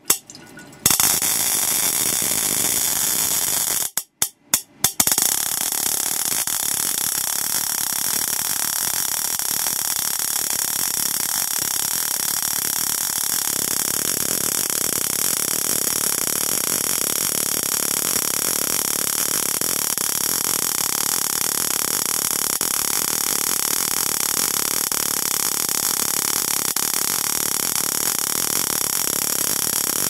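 Water-drop-triggered high-voltage spark gap firing at a fast rate: a loud, dense crackling buzz with a steady high whine over it. It cuts out briefly twice in the first five seconds, then runs on unbroken.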